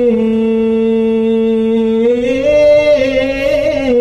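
A man chanting Quranic verse in melodic tajweed recitation, drawing out one long sung vowel. The held note wavers upward in pitch in its second half.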